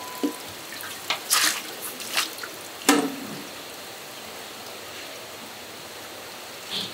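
Steady running water, with a few splashes and wet knocks clustered about one to three seconds in, the last and loudest about three seconds in.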